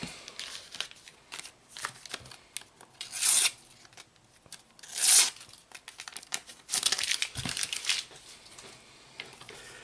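A paper sticker packet being torn open and crinkled, in several short rips and rustles, the longest about seven seconds in.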